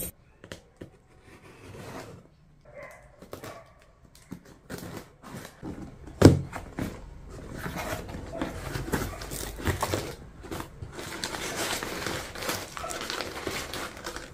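Unboxing a cardboard shipping box: scattered light taps and scrapes of cardboard, a single sharp knock about six seconds in, then from about eight seconds on a steady crinkling rustle of crumpled kraft packing paper being pulled from the box.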